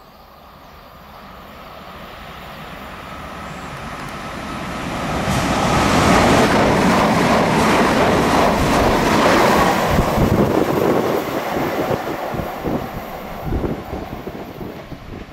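Regional electric multiple-unit train passing through a station at speed: the rumble and rush of wheels on the rails grows steadily, is loudest about halfway through as the train goes by, then fades with a few sharp knocks from the wheels on the track.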